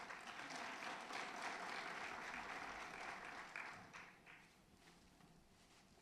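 Audience applauding for about four seconds, then dying away.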